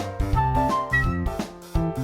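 Background music: an upbeat instrumental tune with a steady beat and short melody notes.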